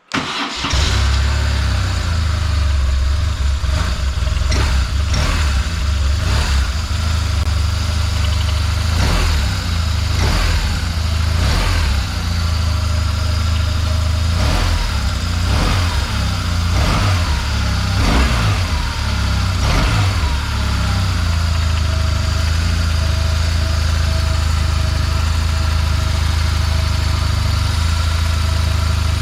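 BMW R1200C's boxer-twin engine starting up, then blipped in a series of short revs for the first twenty seconds or so, each falling back to idle, and settling into a steady idle near the end.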